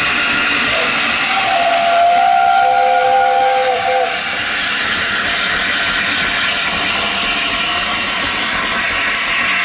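Steam locomotive whistle blown once for about three seconds, several notes sounding together as a chord, over a steady hiss of steam.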